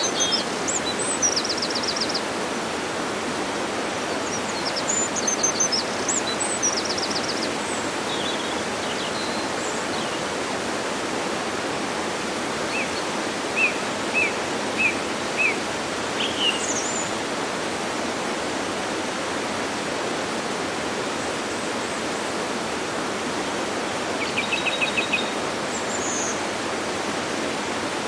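Waterfall rushing steadily, with birds calling over it: a few quick trills near the start, a row of five short chirps about halfway, and another trill near the end.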